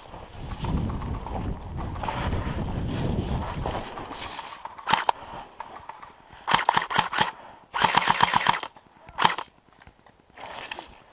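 Airsoft guns firing: a quick string of shots about six and a half seconds in, then a short rapid full-auto burst and one more shot. A low rumble fills the first few seconds.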